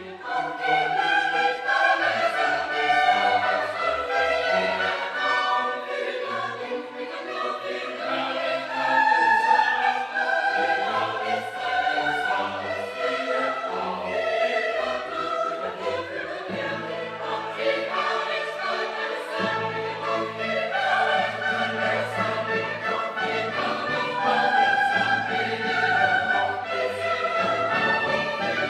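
Choral music: a choir singing with instrumental accompaniment. Steady low bass notes come in about halfway through.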